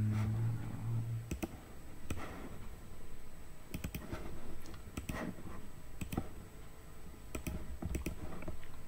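A low steady hum that stops about a second in, then scattered computer mouse clicks, several in quick pairs.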